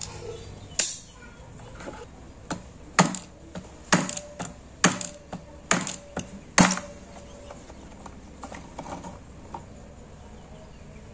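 Locking pliers and metal parts clicking and knocking at a blender motor's shaft as the drive coupling gear is worked loose. There are about half a dozen sharp knocks, several with a short metallic ring, and fainter ticks between them.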